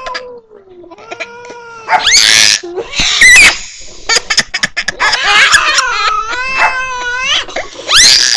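Angry cats yowling in long, wavering, drawn-out caterwauls from a cat video playing on a device, with a few short noisy bursts in between.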